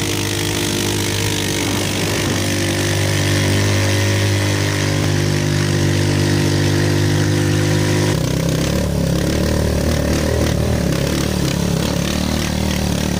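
Motorcycle engine running steadily under load while carrying riders, with a steady hum; about eight seconds in, its note changes abruptly to a rougher sound.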